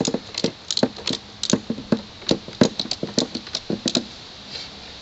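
Ratchet strap being cranked tight: a quick, irregular string of sharp clicks that stops about four seconds in.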